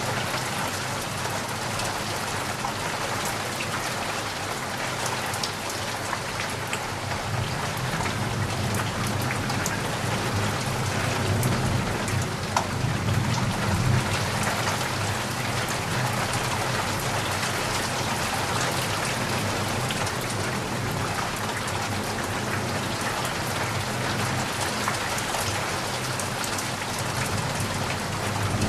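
Steady rain falling on a surface, a dense hiss with individual drops ticking through it. A low rumble swells about halfway through and again near the end.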